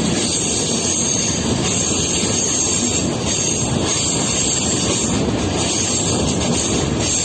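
Train running along the track: a steady rumble and rail noise with no pauses.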